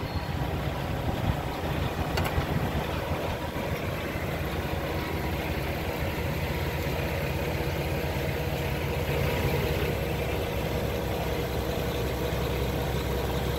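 PACCAR MX-13 diesel of a Peterbilt 579 truck tractor, emissions-deleted, idling steadily with a low, even hum.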